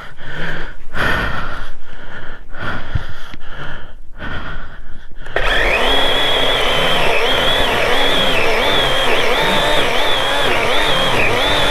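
A series of short, rhythmic sounds, then about halfway in a gasoline chainsaw starts running at a steady level, its engine pitch wavering up and down as it works. The chain is dull.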